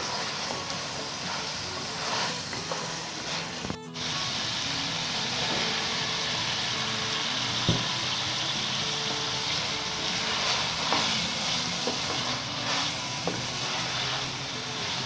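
Minced meat frying in a steel karahi: a steady sizzle and hiss, with the wooden spoon scraping and knocking against the pan as it is stirred. The sound drops out briefly a little under four seconds in, then the frying goes on with diced raw potatoes being stirred into the keema, and a sharp knock comes about eight seconds in.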